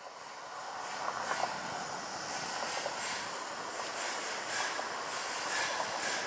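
Distant approaching Amtrak passenger train: a steady rushing rail noise that grows louder over the first second, with brief brighter hiss now and then.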